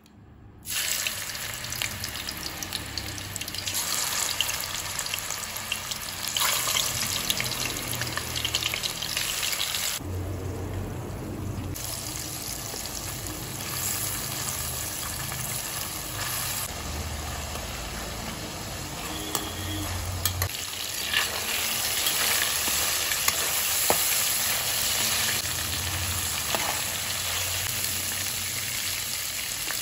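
Chilli-marinated prawns frying in hot oil in a nonstick pan: a steady sizzle full of small crackling spits that starts suddenly about a second in.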